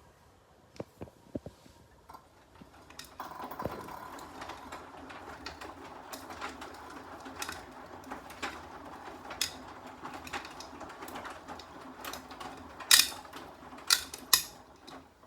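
Beko washing machine starting up about three seconds in and running with a steady hum, dotted with irregular clicks and knocks, with a few louder sharp clicks near the end. It is the unexplained noise the owner is asking about.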